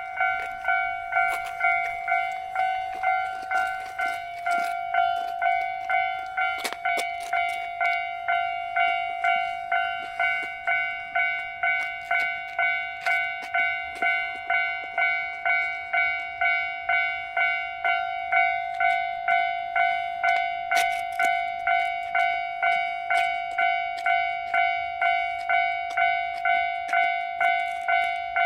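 Japanese railway level-crossing warning bell ringing 'kan-kan': a clear metallic ding repeated at an even beat, about one and a half strikes a second, without a break.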